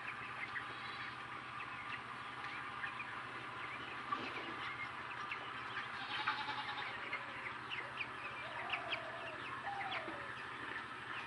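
Flock of deshi (native Bangladeshi) chickens clucking and chirping, with many short high chirps throughout and a few drawn-out clucks a little past the middle, over a steady low hum.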